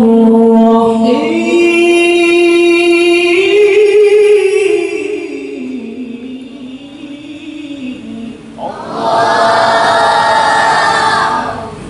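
Male qari reciting the Quran through a microphone in one long drawn-out melodic phrase, the pitch climbing and then sliding down as it fades. Near the end a loud outcry of many voices breaks in for about two seconds, then stops.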